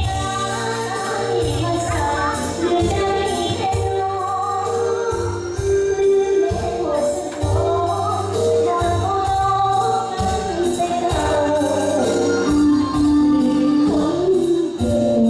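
Woman singing into a microphone over amplified backing music with a steady beat.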